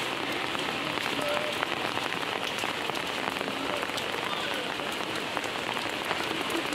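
Steady rain falling on wet ground and pooled water, with individual drops ticking nearby.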